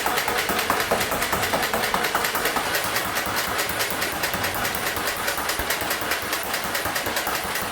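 X-Shot Mine Blaster foam-dart toy blaster running, a fast, even mechanical clatter of about ten clicks a second.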